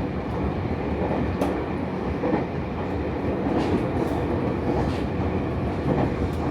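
Nankai Koya Line local train running, heard from inside the car: a steady rumble of wheels and running gear, with a few sharp clicks scattered through it.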